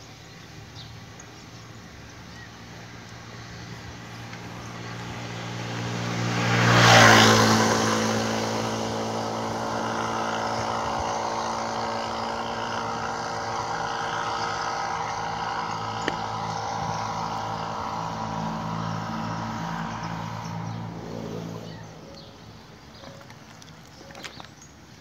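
A motor vehicle's engine running, swelling to its loudest as it passes close about seven seconds in, where its pitch drops. A steady engine hum then continues and fades away near the end.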